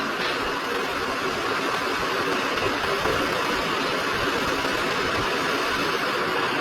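Steady hiss of moving air from a small electric blower, running evenly without change.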